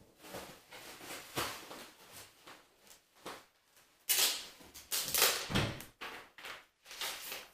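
A cardboard box rustling and scraping in irregular bursts as a cat moves about in it, loudest about four to six seconds in.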